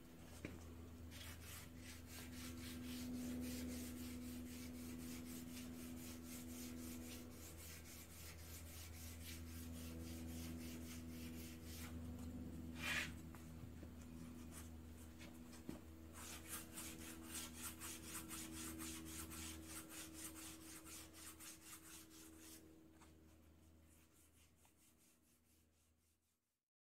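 Sandpaper rubbed back and forth by hand over filler primer on a spoked wheel, in quick repeated strokes with one sharper scrape about halfway through. A steady low engine drone runs underneath, like a hang glider with a lawnmower engine on it.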